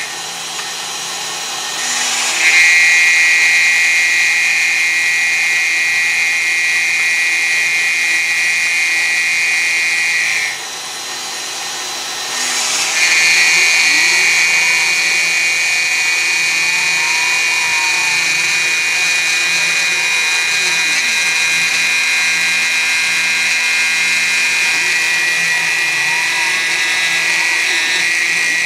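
CNC milling machine's spindle and cutter running at a steady high whine while milling a plastic part. The cutting sound drops away briefly near the start and again for about two seconds around ten seconds in. Faint rising and falling tones from the machine's axis motors can be heard beneath it.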